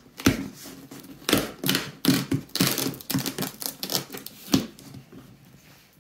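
Packing tape and clear plastic wrap being picked at and peeled off a cardboard shipping box: an irregular run of sharp crackles and rustles that thins out toward the end.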